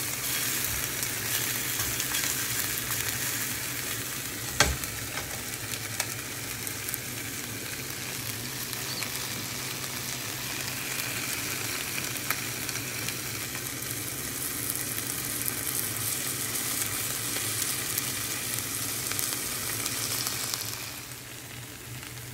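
Chicken legs frying in a skillet in their own rendered fat, with a steady sizzle and fine crackling. There is one sharp knock about four and a half seconds in, and the sizzle dies down near the end.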